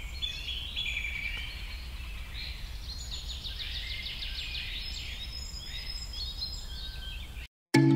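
Forest ambience of several birds singing: whistled notes and glides, with a rapid series of short clipped notes in the middle, over a steady low rumble. It cuts off abruptly near the end.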